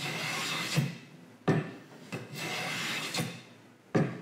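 Wooden hand plane shaving the edge of a narrow board, a rasping pass of about a second per stroke, with sharp knocks of the plane on the wood between strokes.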